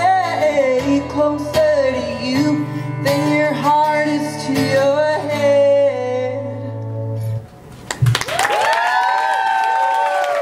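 A woman sings a long, wordless closing line over sustained guitar chords, which end about seven and a half seconds in. The audience then breaks into applause and cheers.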